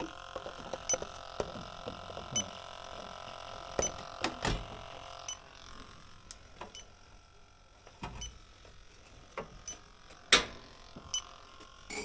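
Electronic refrigerant leak detector ticking slowly, about once a second, at its resting rate: no leak is being sensed. A steady hum fades out about five seconds in, and a few sharp knocks come in between, the loudest about ten seconds in.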